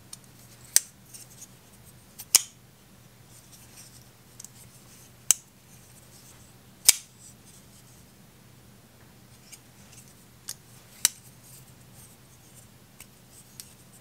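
Small folding pocket knife being flicked open and snapped shut in the hand: about five sharp clicks of the blade at uneven intervals, with fainter ticks between.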